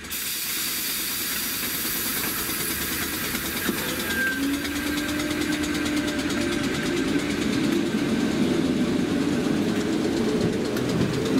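Merseyrail electric multiple unit pulling away from the platform: a steady rushing noise, joined about four seconds in by a low traction-motor whine that slowly rises in pitch as the train picks up speed.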